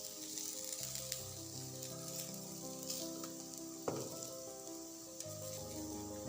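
Kidney-bean kebabs sizzling in oil on a hot grill, a steady fine crackle, with one sharp clack about four seconds in. Soft background music with slowly changing notes plays underneath.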